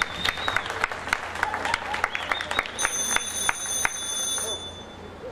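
Sparse audience clapping, irregular claps a few per second that die away near the end, with a thin high steady tone sounding on and off alongside.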